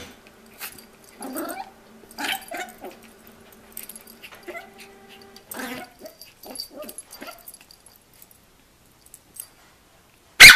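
Yorkshire terrier making short, scattered whimpers and growls while play-fighting with a cat. One sharp, loud yip comes near the end.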